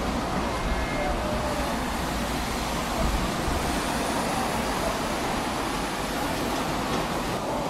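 Street traffic ambience: a motor vehicle's engine rumbling under a steady hiss of road noise, the rumble heavier in the first few seconds.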